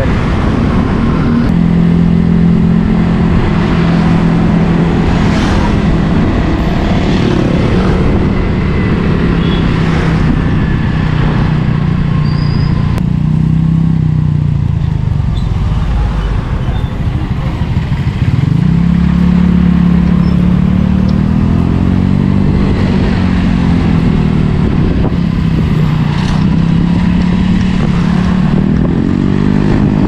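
Motorcycle engine running while riding, picked up by a helmet-mounted GoPro. The engine note holds steady, falls about halfway through as the bike slows, then climbs again as it speeds back up.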